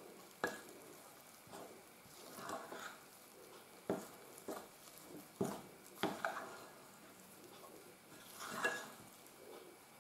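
A metal spoon stirring soft, wet dough in a glass bowl: quiet squelching scrapes, broken by several sharp clicks as the spoon knocks against the glass.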